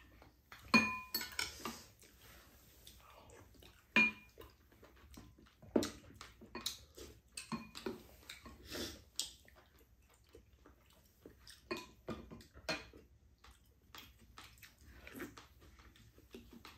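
Spoons and chopsticks clinking against ceramic bowls and the stew pot, with chewing between. Two sharp clinks stand out, about a second in and about four seconds in, each ringing briefly, then lighter taps follow.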